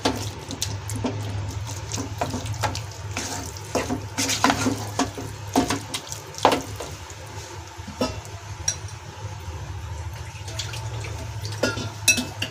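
Wooden spatula stirring and mashing thick, wet eggplant bharta in a nonstick kadai: irregular wet scrapes, squelches and light knocks against the pan, over a steady low hum.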